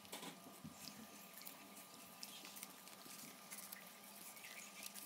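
Faint rustling and crinkling of printed paper as it is folded and creased by hand.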